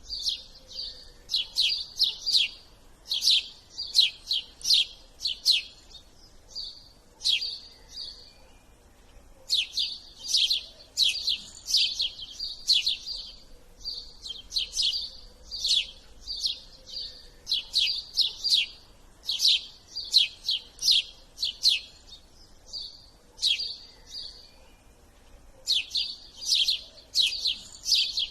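Small bird chirping: quick, sharp chirps repeated several times a second in clusters, with short pauses between clusters.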